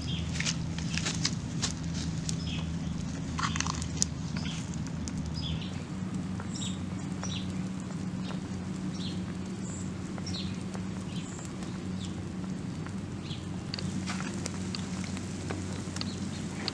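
Large pot of beef leg and tail soup boiling hard over an open wood fire: a steady low bubbling rumble with scattered crackles and pops from the burning wood. A few short high chirps come in the middle.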